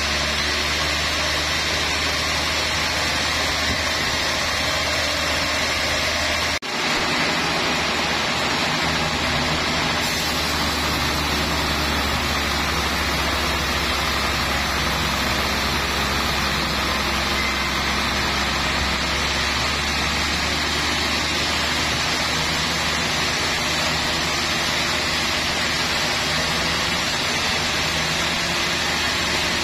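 Large sawmill band saw running and cutting through a trembesi log as the carriage feeds it past the blade: a steady loud mix of low motor hum and sawing noise, with a brief drop in level about six and a half seconds in.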